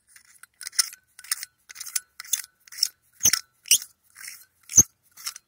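A metal cigarette lighter socket housing and its sleeve being twisted and handled in the fingers, giving a run of about ten short metallic scrapes and clicks. Two sharper clicks, one about halfway through and one near the end, are the loudest.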